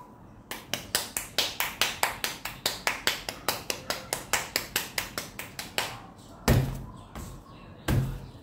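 Hands patting a ball of corn masa flat between sheets of plastic to shape a tortilla, a quick even run of slaps about four to five a second. Near the end come two louder low thumps.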